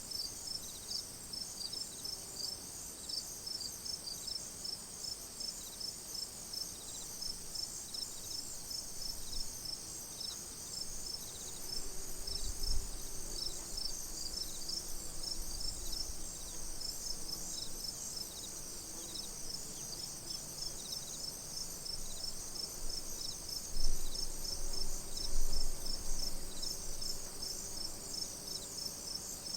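Crickets chirping: a steady high trill, with pulsed chirps about three times a second running under it. Brief low rumbles come about twelve seconds in and again near the end, and these are the loudest moments.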